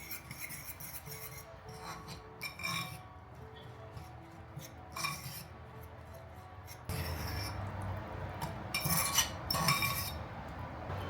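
Dishes and glassware clinking as they are handled and set down, a series of short, ringing clinks; about seven seconds in a steady low hum starts up beneath them.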